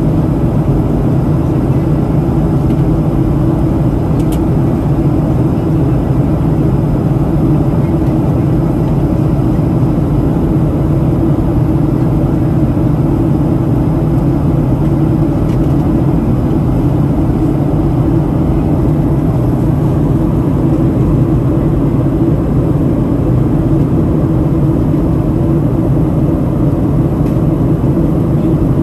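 Steady cabin noise of a Boeing 737-700 during descent, heard inside the cabin at a window seat over the wing: the low drone of its CFM56-7B turbofan engines mixed with the rush of air along the fuselage.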